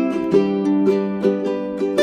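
Background music: a quick run of plucked notes over a held low note.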